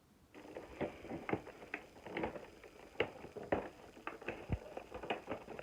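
Irregular small clicks, taps and rustles of a cardboard advent calendar being handled and its door opened.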